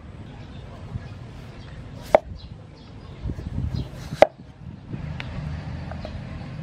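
Steel cleaver slicing a raw potato onto a thick round wooden chopping block: two sharp knocks of the blade on the wood about two seconds apart, then a few fainter taps near the end.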